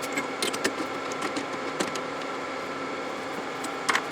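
Scattered light clicks and metal knocks of brass bar stock being loaded into a lathe chuck, with a louder clatter near the end, over a steady background hum.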